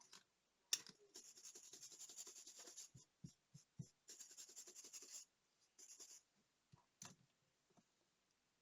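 A small hand tool scratching and rubbing on the parts of a Soviet 'Montana' digital watch, close up. There are two runs of rapid scratching strokes with a few soft taps between them, a sharp click before, and another click near the end.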